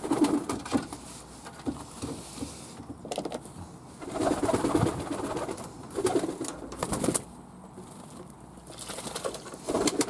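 Fantail pigeons cooing in uneven bursts, with flurries of wing flapping and splashing from a pigeon bathing in a tub of water.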